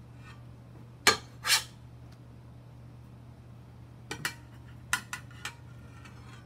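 Large metal spatula clacking against square ceramic plates as grilled fish fillets are lifted and set down: two sharp clacks about a second in, then a few lighter clicks around four to five seconds, over a low steady hum.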